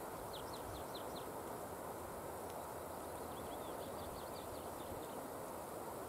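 A small songbird sings two short phrases of quick, high, thin notes, one just after the start and one in the middle, over a steady background hiss.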